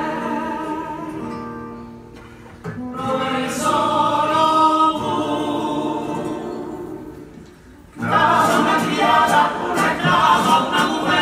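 All-male carnival comparsa choir singing in harmony with guitar accompaniment. Each sung phrase swells and fades, and a louder full-voiced phrase comes in about eight seconds in.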